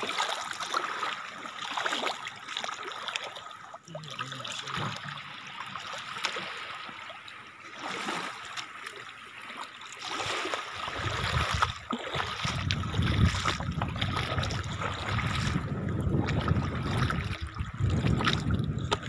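Shallow seawater trickling and sloshing around wading feet on a sand flat. A low rumble sets in about halfway through and continues.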